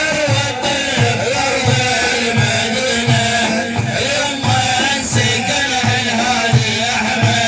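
Middle Eastern music: a wavering melody over a steady, repeating low drum rhythm, playing as an instrumental passage between sung verses of a madih praise song.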